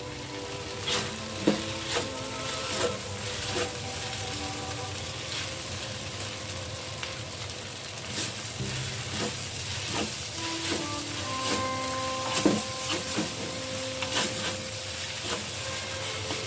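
Rice vermicelli stir-frying in a hot pan: a steady sizzle, with a spatula clinking and scraping against the pan at irregular moments.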